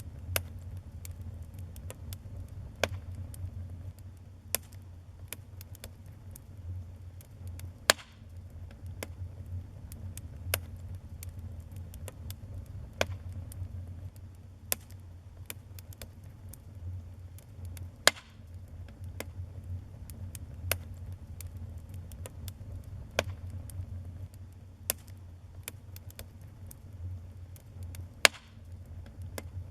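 Wood fire burning in a fireplace: a steady low rumble of flames with sharp, irregular pops and crackles from the burning logs, a few of them much louder than the rest.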